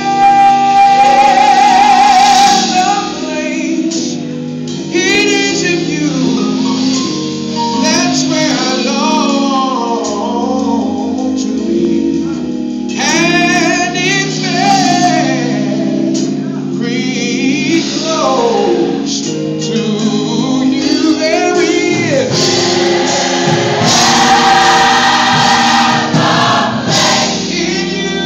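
Large gospel choir singing in full harmony, with a lead voice's wavering melismatic runs rising over the held chords.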